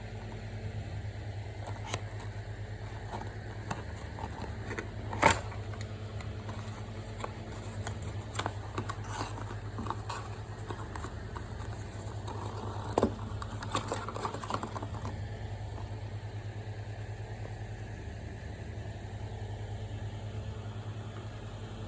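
Scattered clicks, taps and rustles of a headlight bulb's packaging being handled, with a sharp click about five seconds in and another about thirteen seconds in, over a steady low hum.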